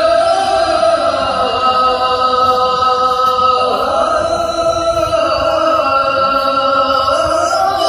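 Islamic devotional chanting laid over the footage as a soundtrack: a voice holding long notes that slide slowly up and down in pitch.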